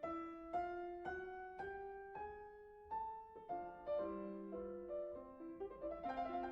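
Background solo piano music in a classical style: single notes climbing step by step about twice a second, then overlapping notes and chords, with quicker notes near the end.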